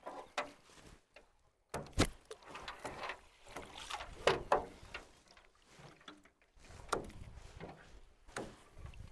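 Water splashing and sloshing in a stream as a fishing net is worked through it, in irregular splashes: a sharp one about two seconds in and two louder ones near the middle.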